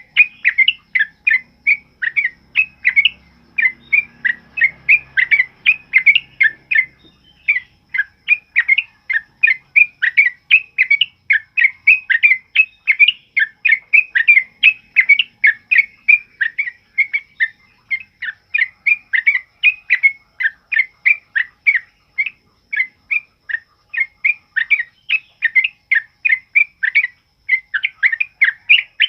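Yellow-vented bulbul (trucukan) singing a fast, continuous run of short, loud, bubbling notes, about three a second.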